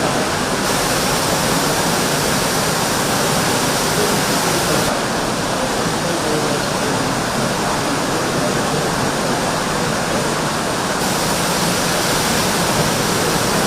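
Steady, loud rushing hiss with no pitch or rhythm; its upper part drops out and returns a few times.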